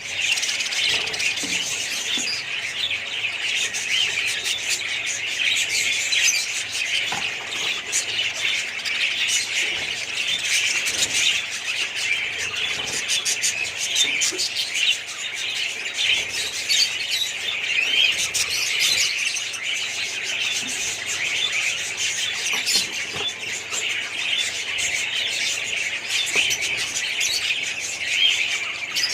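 A colony of budgerigars chattering and chirping all at once, many birds overlapping in a dense, unbroken high-pitched chorus.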